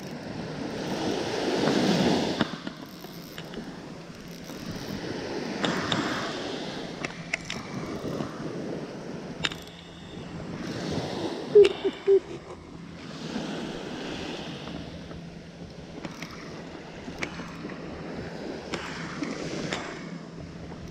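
Small waves washing up a sandy beach, a swell of surf every four seconds or so, with scattered light clicks from a spinning reel being worked. Two short squeaks, the loudest sounds, come just past halfway.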